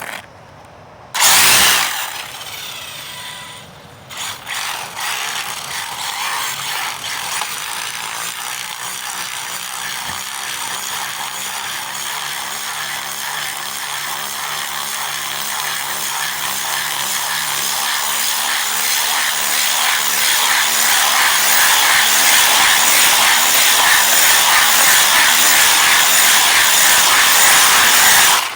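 Arrma Typhon RC car's electric motor and drivetrain whining at speed, with its tape-wrapped wheels sliding on the ground. There is a sharp loud burst about a second in; the whine grows steadily louder through the second half and cuts off suddenly at the end.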